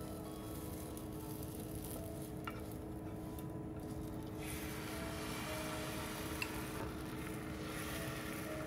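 Beaten egg sizzling in a rectangular tamagoyaki pan. The sizzle grows louder about four seconds in, when more egg mixture is poured into the hot pan. There are a couple of light clicks of chopsticks against the pan.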